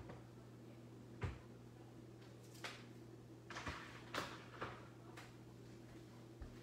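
Scattered light knocks and clicks, about seven in a few seconds, the loudest about a second in, over a steady low hum.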